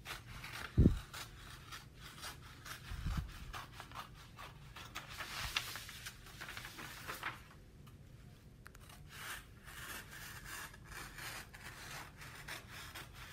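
Scissors cutting through brown pattern paper: a run of crisp snips and scrapes, with the paper sheet rustling as it is lifted and turned. A short low thump about a second in.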